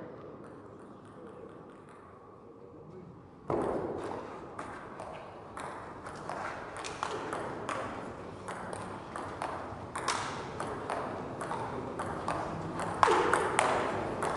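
Table tennis rally: the ball is struck by bats and bounces on the table, with sharp clicks about every half second to a second. The hitting starts about three and a half seconds in, after a quiet start, and there is a louder burst of noise near the end.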